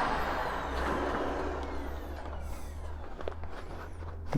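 Bagged vacuum cleaner's motor spinning down after being switched off, its whine falling in pitch and fading over about three seconds.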